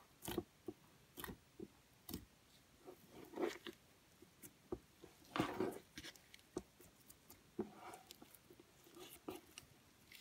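Thick, sticky cornstarch slime being pressed, stretched and folded by hand, giving irregular wet clicks and squelches. The longest and loudest squelch comes about five and a half seconds in.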